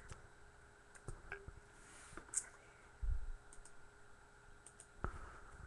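Scattered sharp clicks from a computer mouse and keyboard, with a dull low thump about three seconds in.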